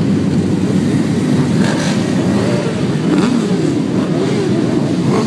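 Many sport motorcycles idling and revving at once, their engine notes rising and falling over one another.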